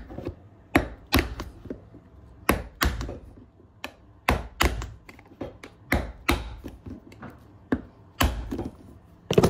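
Hammer striking a nail set to countersink nails into a new leather stacked heel base on a cowboy boot. About a dozen sharp taps come at irregular spacing, often in quick pairs.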